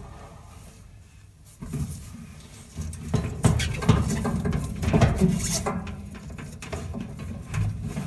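Gloved hands working inside a dryer cabinet, pushing the spring-loaded idler pulley aside and slipping the drive belt off it: after a quiet second and a half, irregular knocks, clicks and rubbing handling noise.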